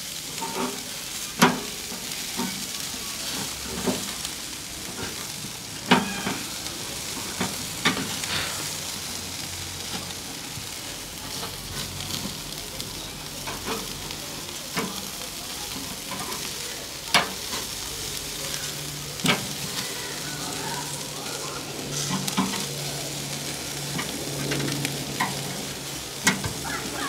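Chicken sizzling on a hot charcoal barbecue grill, a steady hiss of fat and marinade frying. Occasional sharp clicks and knocks come in as the pieces are moved around to keep them from burning.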